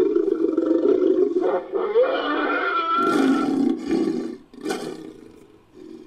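Monster roar sound effect for a manticore, layered from lion and monster roar recordings: a long roar, a second roar that opens with a rising pitch about two seconds in, and a short final burst near the end before it dies away.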